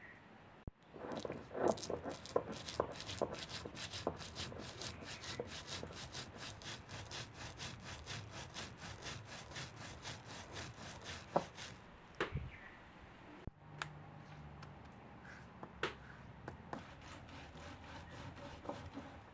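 Food being prepared by hand: rhythmic rasping strokes, about four a second, that stop about twelve seconds in and give way to a few separate knocks and taps.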